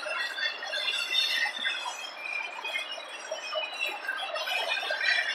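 Intermodal freight cars rolling past, their steel wheels squealing against the rails in short high-pitched squeals that keep changing pitch, over a steady rolling noise from the train.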